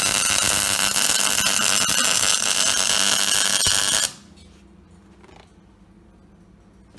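Arc welding on laser-cut steel: a steady, loud crackle and frying from the arc as a breastplate is welded on, which stops abruptly about four seconds in.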